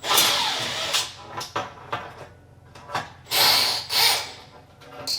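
Power drill run in short bursts while a long auger bit is mounted in its chuck. The first burst winds down with a falling pitch, and two more quick bursts about three seconds in carry a high motor whine.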